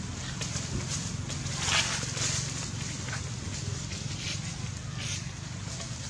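Outdoor ambience: a steady low rumble with scattered short rustles and crackles, the loudest a noisy burst about two seconds in.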